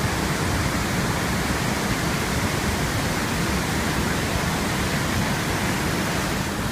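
Steady, dense rush of falling water at the Iguazu Falls, unbroken throughout.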